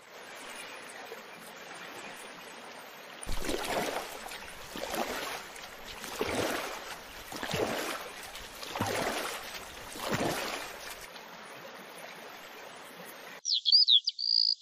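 Water lapping against a rowboat, with six even oar strokes swishing through the water about a second and a half apart. Near the end it cuts to birds chirping.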